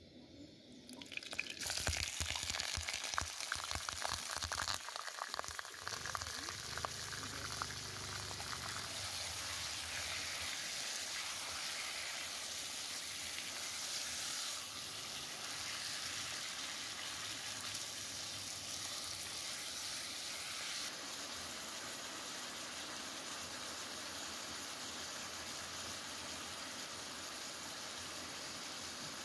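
Raw chicken pieces frying in hot oil in a large kadai. They crackle and spit hard for the first few seconds after going in, then settle into a steady sizzling hiss.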